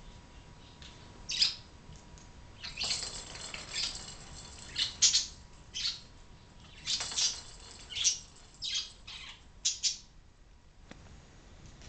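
Budgerigars giving short, sharp chirps and squawks, about a dozen scattered irregularly, some in quick pairs.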